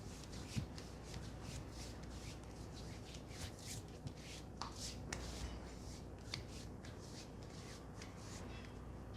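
Hands rubbing through hair and over the scalp during a head massage, in quick repeated strokes about two to three a second, with a few sharper crackles among them.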